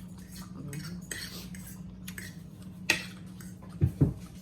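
Forks and knives scraping and clinking on plates while eating, with a sharp clink about three seconds in and two dull thumps near the end, over a steady low hum.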